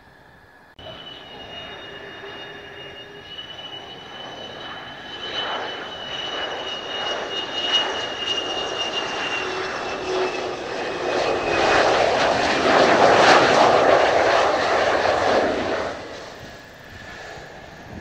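Twin J79 turbojets of an F-4EJ Kai Phantom II on final approach: a high, slightly falling whine over a rushing jet noise that swells as the jet comes close. It is loudest in the last third, then drops off sharply.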